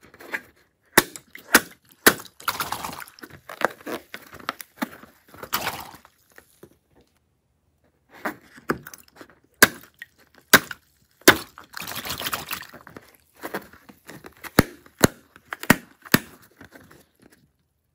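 A filled rubber balloon squeezed and kneaded by hand, giving sharp cracks and crackling. There are two runs with a short pause between them, about a third of the way in.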